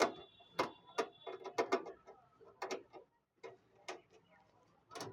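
Irregular light clicks and knocks of a small sheet-metal PC cabinet's panel being slid off and handled, about a dozen in all.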